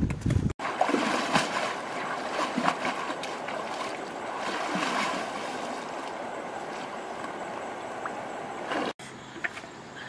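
River water sloshing and splashing around a person wading in it, with scattered small splashes over the steady rush of the water.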